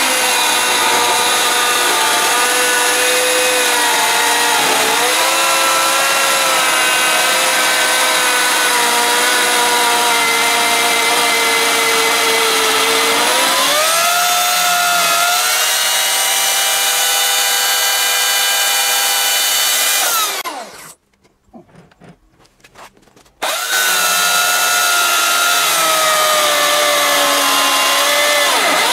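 Oregon CS1500 electric chainsaw cutting down into a log on a homemade overhead chainsaw mill, its motor whine dipping in pitch as it labours in the cut and rising when the load eases. About two-thirds of the way through, the motor runs down and goes quiet, then it is running at full speed again about three seconds later.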